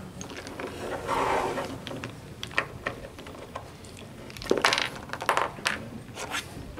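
Wooden chess pieces knocking together and sliding on a wooden board as they are gathered up. A scraping rustle comes about a second in, then a run of sharp clacks about four to five seconds in, with a few more single clacks after it.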